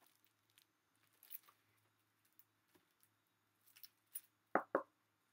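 Handling of a cutting mat and a cardboard box: faint rustling and light clicks, then two short thuds close together near the end as the mat is set down in the box.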